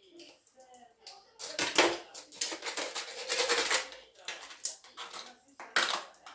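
Rapid clattering and knocking of hard objects being handled, a dense run of clicks and knocks.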